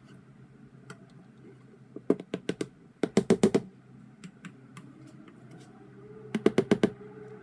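Spatula knocking and clattering against a stainless steel mixing bowl while batter is stirred, in three quick bursts of rapid knocks: about two seconds in, about three seconds in, and near the end.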